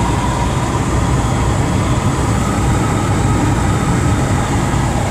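Steady road and engine noise inside a four-wheel drive cruising at about 100 km/h: an even low drone with tyre and wind hiss over it.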